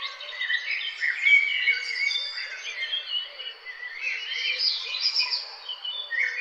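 Chorus of several songbirds singing at once, a dense run of overlapping chirps and whistled phrases with no pause.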